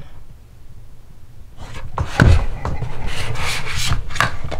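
Rubbing and scraping against a hard surface, with a single thump a little past two seconds in.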